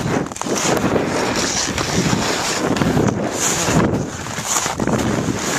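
Wind buffeting the microphone of a skier moving downhill, with skis hissing and scraping over the snow in recurring bursts.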